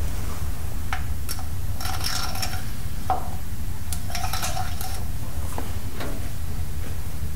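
Metal-on-metal clinks and taps with a short ringing tone, from tools and fittings being handled on the tractor's hydraulic housing. Scattered single clicks, with two clusters of ringing clinks about two and four and a half seconds in, over a steady low hum.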